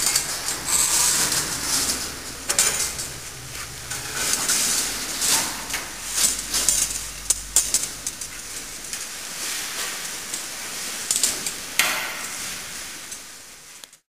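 Steel rebar stirrups clinking, rattling and scraping against each other and the reinforcement mesh as they are handled and fitted, in irregular metallic clicks. A low hum underneath stops about halfway, and everything fades out near the end.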